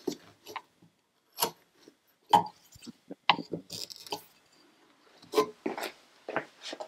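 Wood chisel paring and scraping along the walls of a mortise cut in a wooden block: a series of short, separate cuts and scrapes, about one or two a second, the sharpest about two seconds in.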